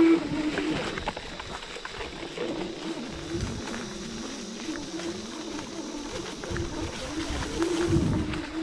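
Electric motor hum: a steady, slightly wavering tone that fades and weakens through most of the stretch and comes back strongly near the end, over scattered clicks and rattles.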